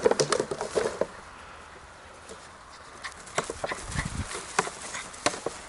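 A puppy scuffling in the grass with a chew toy: scattered taps, clicks and rustles, busiest in the first second and again in the second half.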